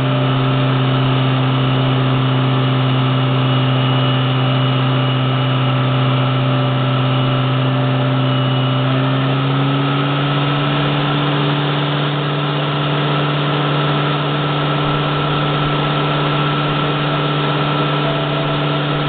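A motor running steadily with a low, even hum, its pitch stepping up slightly about halfway through.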